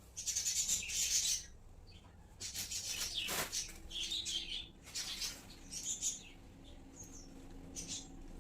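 Small pet cage birds chirping in several bursts of rapid, high chirps, with one downward-sliding call about three seconds in.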